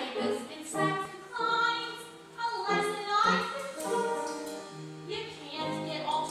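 A woman singing a show tune from a musical, in held, melodic phrases.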